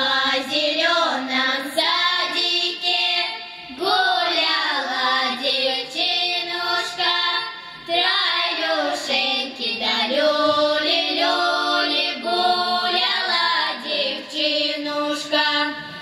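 A girls' folk ensemble singing a Cossack folk song unaccompanied, in long drawn-out phrases with sliding pitches.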